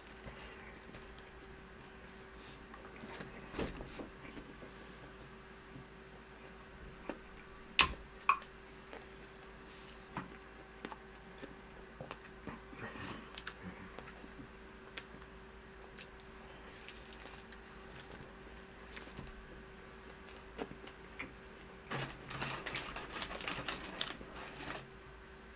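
Eating noises of someone wolfing down a sandwich: scattered small clicks and crinkles of chewing and handling. There is one sharp click about eight seconds in and a busier run of crackling near the end, over a faint steady hum.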